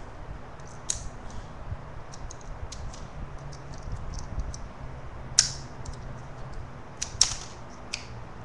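Miniature toy pistol's mechanism clicking as it is handled: a run of small, sharp clicks, with louder snaps about a second in and twice more in the second half.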